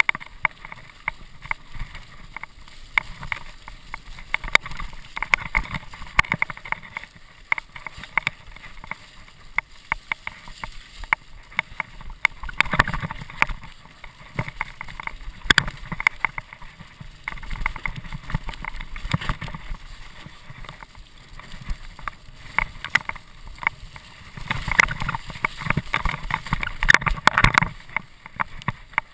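Mountain bike rattling and clattering down a rough dirt trail, recorded by a GoPro on the handlebars: a constant run of sharp knocks from the bike and tyres over the bumps, with louder, busier stretches about halfway and near the end.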